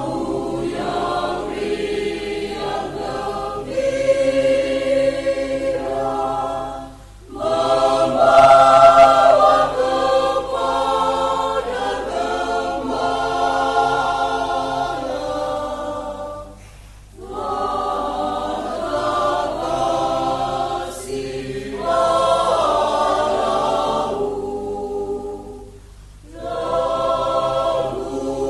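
Mixed church choir of women's and men's voices singing in sustained phrases, with short breaks between phrases about seven, seventeen and twenty-five seconds in.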